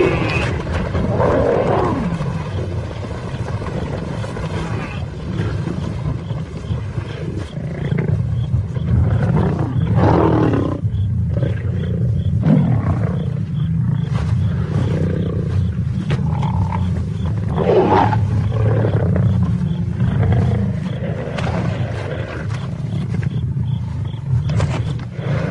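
Lions growling over a zebra kill: a continuous deep growl runs throughout, with louder calls about ten seconds in and about eighteen seconds in.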